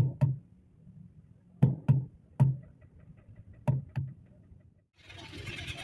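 A series of heavy knocks at irregular intervals, about six blows, each a sharp hit with a low thud. Near the end the sound cuts to a steady running noise.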